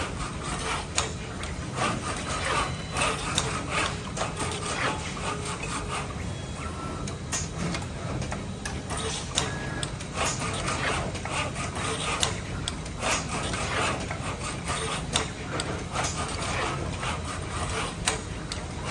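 Automated gantry pick-and-place machine running, its motors and drag-chain axis moving with a constant low hum under many irregular clicks and clacks as it handles circuit boards between trays.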